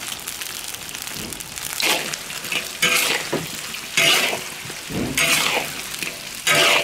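Duck pieces sizzling in hot oil in a large iron wok as a metal spatula stir-fries them. Five loud spatula strokes scrape and toss the meat against the wok, about once a second, starting about two seconds in.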